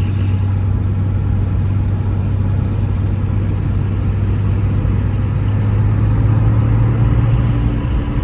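In-cabin sound of a 1973 Porsche 911T on the move: the air-cooled flat-six running steadily under road noise, with wind rushing past the small side mirror. The engine swells a little near the end, then eases off.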